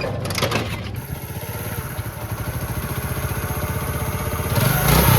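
Honda motorcycle engine running steadily at idle after its worn timing chain has been replaced, with a short clatter right at the start and a rise in engine sound near the end.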